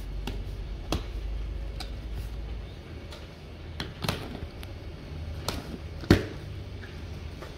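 A handful of scattered light taps and knocks, the sharpest about six seconds in, over a low hum that fades out about two and a half seconds in.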